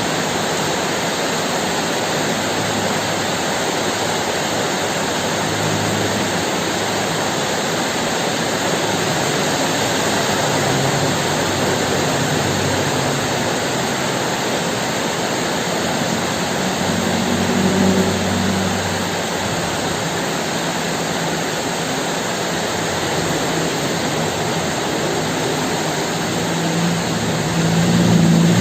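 Steady heavy rain with low rolling thunder under it, swelling about two-thirds of the way through and again near the end.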